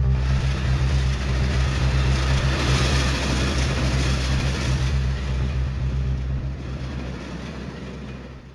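A passenger train rushes past at speed, its rushing, clattering noise over a steady low drone. The noise swells to a peak midway, then fades away near the end.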